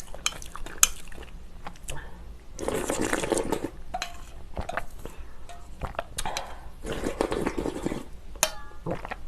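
Slurping spicy ramen broth and noodles, two long slurps about three and seven seconds in, with sharp clicks of utensils against the bowl between them.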